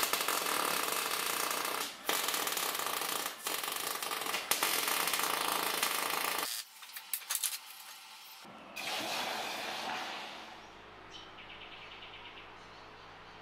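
MIG welder arc crackling and sizzling in a few runs with short breaks, for about six seconds. Then it drops to a quieter hiss, ending in a faint steady hum.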